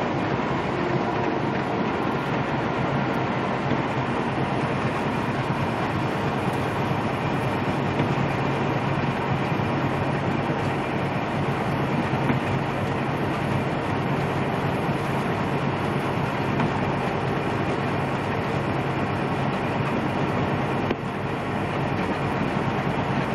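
Steady drone inside a Peterbilt semi-truck's cab at highway speed: the diesel engine's low hum under the hiss of tyres on a wet road.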